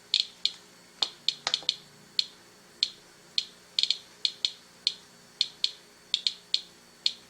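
Medcom Inspector Geiger counter clicking at random, uneven intervals, about three counts a second, as its probe is passed over a package of kelp searching for spots hotter than background.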